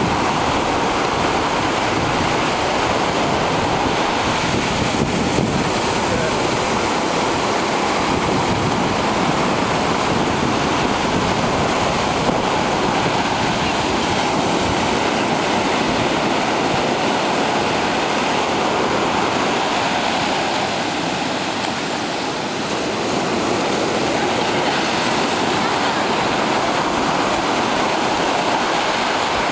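Surf washing up and running back over a sandy beach in a steady rush, with some wind on the microphone.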